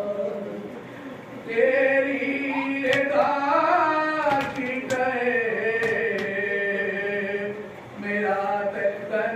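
Men chanting a nauha, a Shia Muharram mourning lament, in drawn-out sung lines with a short pause near the start and another near the end. A few sharp slaps sound during the middle line, which fit hands striking chests in matam.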